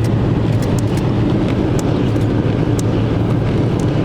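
Steady road and engine noise inside a moving car's cabin: a constant low hum under an even rush of tyre and wind noise, with a few faint ticks.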